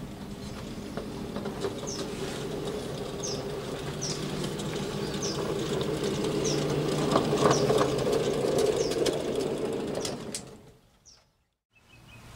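Small 12 V battery-electric 5-inch gauge shunter locomotive running along the track toward the listener, its electric motor drive humming with the wheels rolling on steel rail. It grows louder as it approaches, then fades almost to silence near the end.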